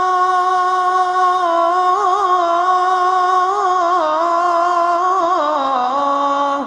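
A single voice singing a long, slow melody in sustained notes with ornamented turns, stepping down lower near the end.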